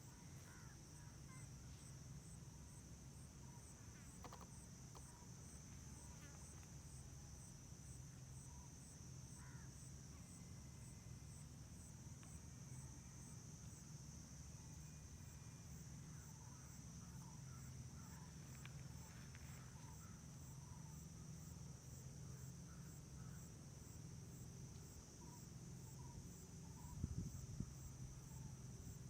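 Faint insect chorus: a steady high buzz with an evenly pulsing chirp above it, over a low steady hum, with scattered faint bird calls and a couple of low knocks near the end.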